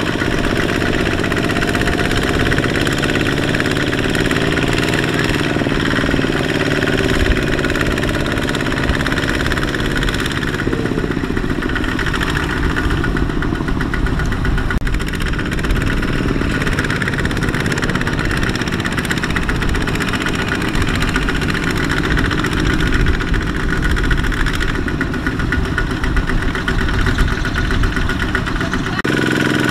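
Kubota RT120 walk-behind power tiller's single-cylinder diesel engine running steadily, pulling a trailer loaded with sacks of rice.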